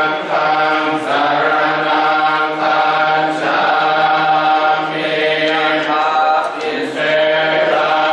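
Many Buddhist monks chanting Pali verses together in unison, a steady recitation in long phrases with short pauses for breath.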